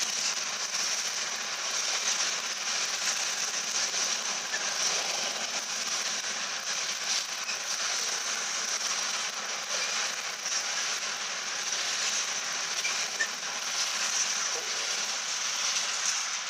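Freightliner coal hopper wagons rolling past: a steady rush of wheel-on-rail noise with a high hiss and faint scattered clatter.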